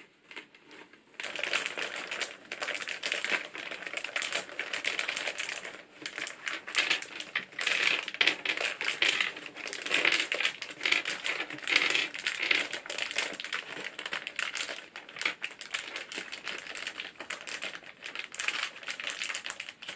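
PBT keycaps clicking and clattering as they are handled and pressed one after another onto an electrocapacitive keyboard's switch stems: a dense, uneven run of small plastic clicks starting about a second in.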